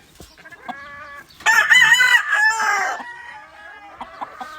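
Roosters crowing: a faint crow near the start, a loud drawn-out crow about a second and a half in, and more distant crows from other birds towards the end.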